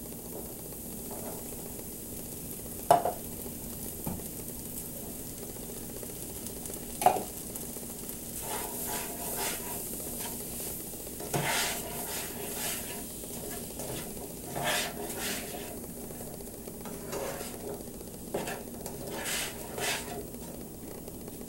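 Ground beef, black bean and corn taco mixture sizzling gently in a skillet. A utensil strikes the pan sharply twice in the first seven seconds, then stirs and scrapes through the mixture in repeated strokes until near the end.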